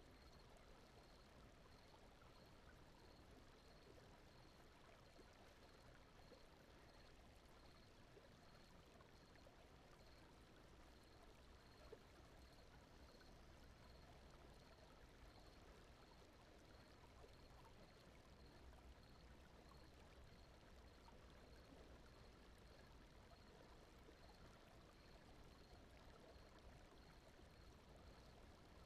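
Very faint, steady brown noise, a soft even rushing much like a distant stream, with a faint high tick repeating about one and a half times a second.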